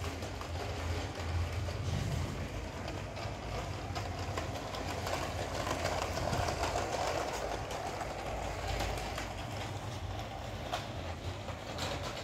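LEGO 60337 Express Passenger Train running on plastic track: the Powered Up train motor whirs steadily while the wheels click over the track joints. The whirr grows louder around the middle as the train passes close by.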